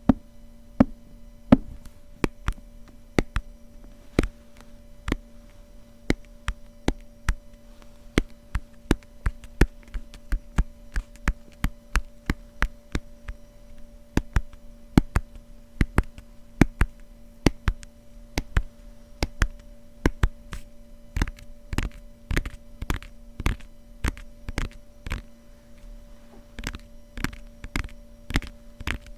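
Fingertips tapping on the cover of a grimoire-style book: sharp separate taps, slow at first and coming quicker and in clusters in the last third. A steady low hum runs underneath.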